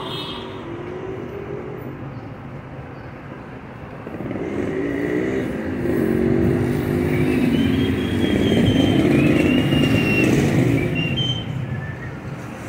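Street traffic with a motor vehicle's engine passing. Its pitch glides up and down, and it grows louder from about four seconds in, is loudest a little past the middle, and fades near the end.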